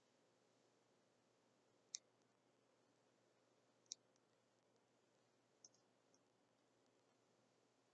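Near silence with faint hiss, broken by short sharp clicks: one about two seconds in, a second about two seconds later, and two fainter ones soon after.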